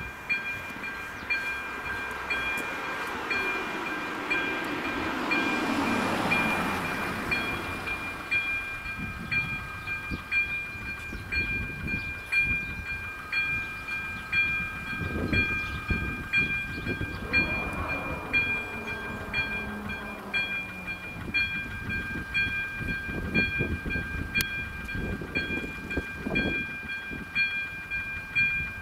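Level crossing warning signal ringing: a steady, high electronic two-tone warning with a regular pulse, sounding while the crossing lights flash. A car passes over the crossing about six seconds in, its road noise swelling and falling away.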